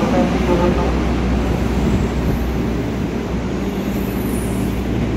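Steady low hum and rumble of a JR 205 series electric commuter train at the platform, with a faint voice in the first second.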